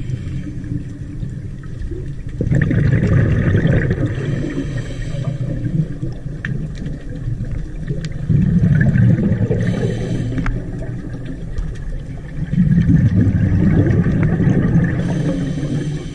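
Scuba regulator breathing heard underwater: exhaled bubbles rumbling in three long bursts, with the hiss of the regulator between them.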